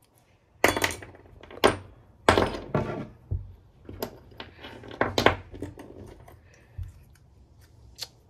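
Gearbox parts of a DeWalt 18V cordless drill, the gear housing and small gears, knocking and clattering against each other and the wooden bench as they are handled and fitted. There are several sharp knocks in the first five seconds, then lighter clicks.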